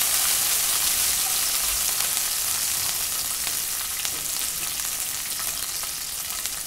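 Curry leaves, dried red chillies and crushed garlic sizzling and crackling in hot oil in a nonstick kadai, a tempering for the fry, stirred with a wooden spatula at the start. The sizzle slowly dies down.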